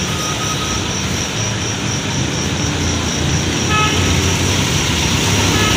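Steady highway traffic noise from passing vehicles, with a low engine rumble underneath.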